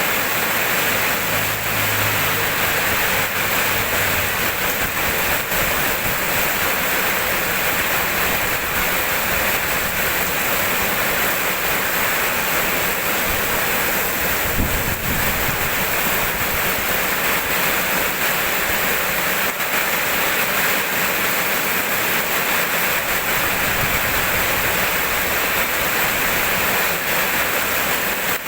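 Steady heavy rainfall, an even dense hiss, with a brief low thump about halfway through.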